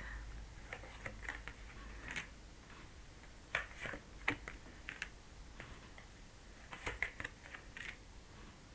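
Tarot cards being handled on a table: faint, scattered soft clicks and taps in small clusters.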